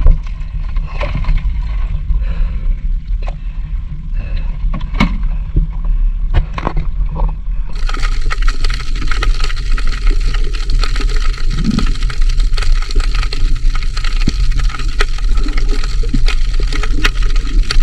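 Shallow seawater sloshing and splashing over a steady low rumble, with a few sharp splashes. About eight seconds in it turns into a denser crackling hiss of moving water.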